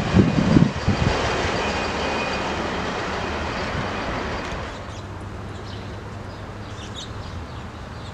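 A freight train's cars rolling away on the rails, the rumble fading as it goes, with a few low thumps in the first second.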